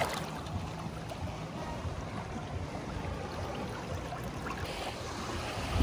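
Lake water lapping and sloshing gently around a swimmer, with a steady low rumble underneath.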